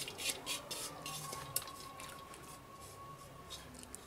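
Washed toor dal poured off a steel plate into water in an aluminium pressure cooker: a scatter of light clicks and plops that thins out after about a second and a half, then only a few faint ticks as the last grains are scraped off the plate.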